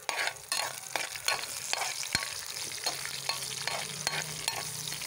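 Red chillies, curry leaves and whole spices sizzling in hot oil in an iron kadai while a spatula stirs and scrapes against the pan, a run of quick strokes that come closest together in the first two seconds.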